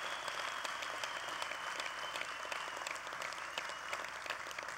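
Audience applauding in a large convention hall, a dense steady patter of many hands clapping that slowly dies down near the end. A thin high steady tone sounds over it for the first few seconds.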